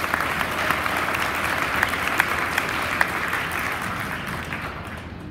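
Audience applauding: many people clapping, tapering off near the end.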